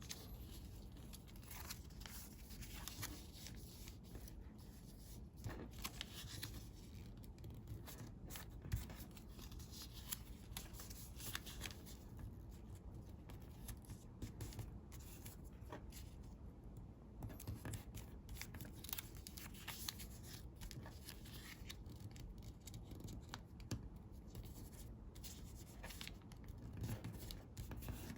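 Sheet of origami paper being handled and folded by hand, with irregular rustling, crinkling and crisp creasing sounds and small clicks.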